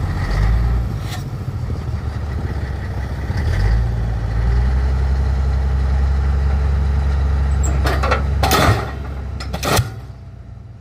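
Pile driver: the rig's diesel engine rumbles steadily and grows louder about three and a half seconds in. From about eight seconds in, the diesel pile hammer starts striking with sharp bangs about a second and a bit apart.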